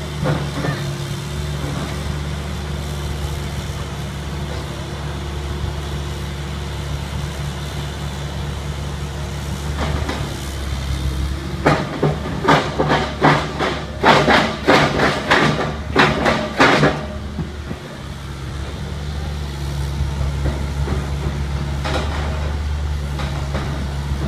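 TesCar CF3 mini piling rig's diesel engine running steadily. In the middle comes a run of about a dozen loud, sharp clanks from the rig's auger and drill gear over about five seconds, then the engine runs on alone.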